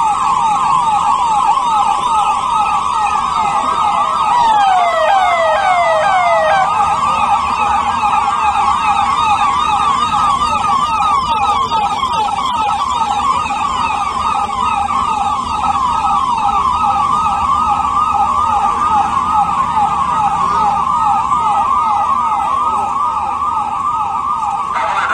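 Police vehicle sirens in a fast, steady yelp, rising and falling several times a second. A second siren overlaps about four to six seconds in with a few sweeps that fall lower in pitch. Low traffic rumble underneath.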